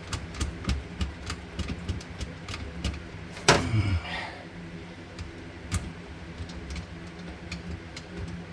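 Irregular light clicks and taps of metal mounting hardware being handled during a garbage disposal installation, with one louder clatter about three and a half seconds in, over a steady low hum.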